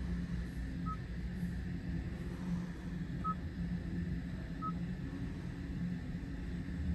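Three short electronic beeps from the 2023 Genesis G90's cabin controls, a second or two apart, as the controls are touched, over a steady low hum.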